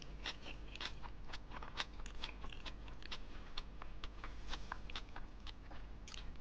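Close-miked chewing of a mouthful of food: a quick, irregular run of small crunches and wet mouth clicks.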